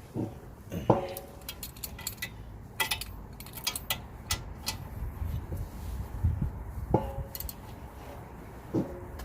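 Socket wrench working on brake caliper bracket bolts: scattered metallic clicks, clinks and knocks, with a few short ringing tones of steel tools against steel, as the bolts are tightened down.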